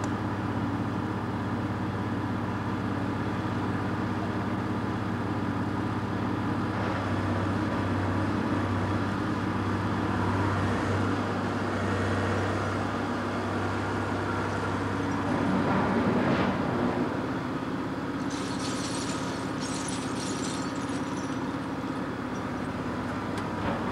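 Scrapyard crane engine running steadily while its electromagnet handles steel scrap, with scrap metal clattering as it falls, loudest in the second half.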